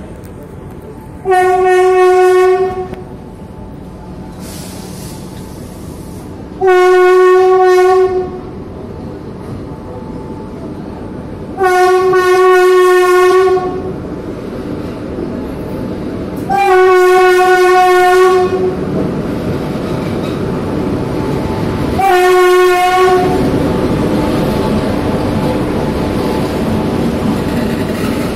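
Indian Railways locomotive horn sounding five long blasts, one every five seconds or so, as the train comes in along the platform. From about two-thirds of the way through, the rumble of the train's coaches passing close by grows louder.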